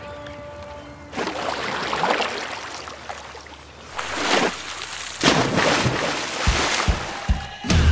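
Water splashing and sloshing around a stand-up paddleboard from about a second in, then the loudest, longest splash from about five seconds in as the paddler falls off into the water, with a few low knocks.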